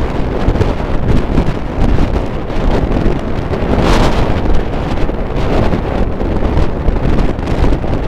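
Strong ground-blizzard wind buffeting the microphone in a steady, dense rush, with a stronger gust about four seconds in.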